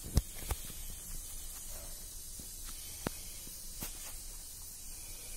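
Hot mustard oil with fenugreek seeds in it sizzling quietly in a pan, a steady soft hiss with a few sharp pops spaced through it.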